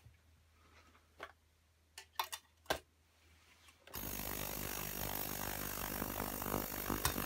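A few light clicks and knocks of glassware being handled, then about four seconds in an ultrasonic cleaner switches on with a sudden steady buzzing hiss that runs on.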